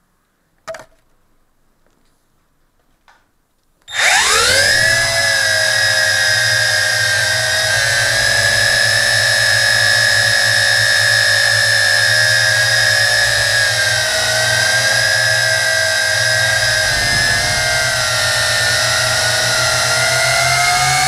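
JJRC Tarantula quadcopter's motors and propellers spinning up suddenly about four seconds in, with a rising whine, then running on as a loud steady high-pitched whine that wavers in pitch as the throttle changes in flight. A couple of faint clicks come before the spin-up.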